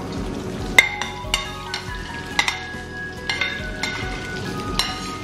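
Food sizzling in a hot wok while a metal spatula stirs and scrapes, with about eight sharp clanks of the spatula against the wok and the bowl, some leaving a short metallic ring.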